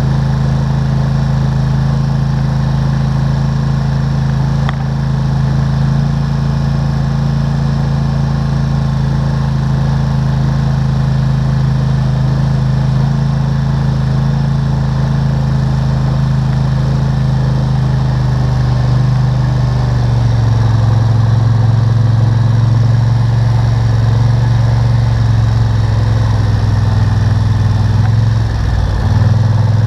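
ATV engine running steadily under way, its note settling slightly lower and louder about two-thirds of the way through, with a brief dip and recovery near the end.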